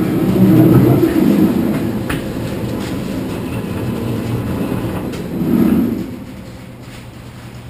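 Roller coaster car's wheels rolling on the steel track, a low rumble that swells loudest near the start and again about five and a half seconds in, then eases off.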